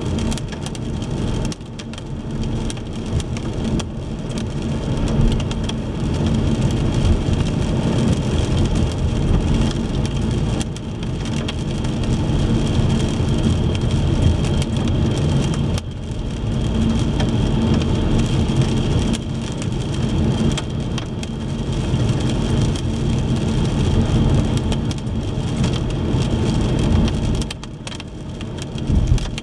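Car driving in the rain: a steady rumble of engine and tyres on wet road, mixed with the hiss of rain.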